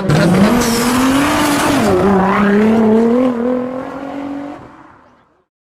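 A car engine revving loudly, its pitch rising and dipping, then fading out to silence about five seconds in.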